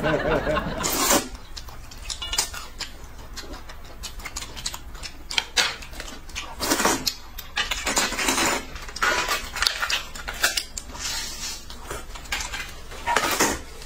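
Noodles being slurped from bowls of soup, in several short noisy bursts, with chopsticks clicking against metal bowls in between.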